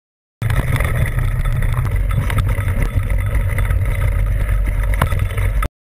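Wind rumbling on an action camera's microphone during a fast mountain-bike descent, a loud low rumble mixed with the bike and tyres rattling over a rocky trail, with a couple of sharper knocks. It starts abruptly about half a second in and cuts off abruptly near the end.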